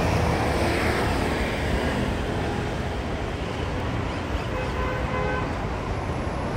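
City street ambience: steady traffic noise from passing cars.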